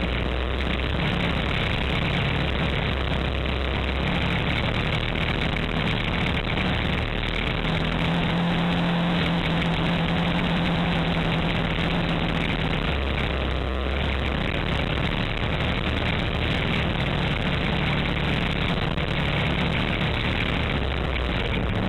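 Kawasaki Teryx4 800 side-by-side's V-twin engine running steadily while the vehicle drives along a dirt road, heard from inside the open cab over a steady noisy rush. The engine note is stronger for a few seconds in the middle.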